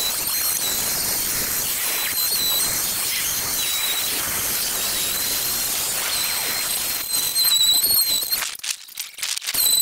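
Electric sander running on the painted wooden legs of a bench: a high, slightly wavering motor whine over a steady rasp. It cuts off about eight and a half seconds in and starts up again briefly near the end.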